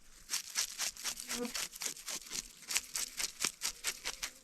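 A knife scraping over a freshly caught pike while it is cleaned, in quick, irregular short strokes, about three or four a second.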